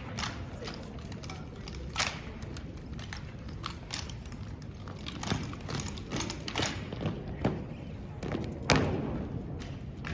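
A drill squad marching in with rifles at port arms: boot steps and sharp knocks on a hard gym floor, irregular, with the loudest strikes about two seconds in and near the end, over a hall's steady murmur.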